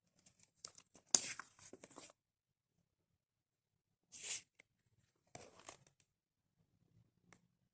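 Paper and card being handled: short rustles and light clicks in a few separate bursts, as the flaps and pages of a cardboard lapbook are moved.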